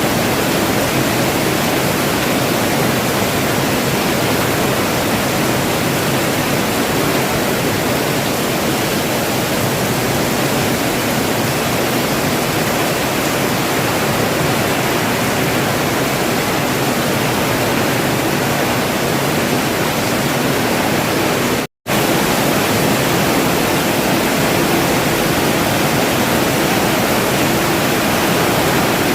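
Rain falling steadily, an even, dense hiss with no pattern or pauses, except one instant where the sound drops out completely about three-quarters of the way through.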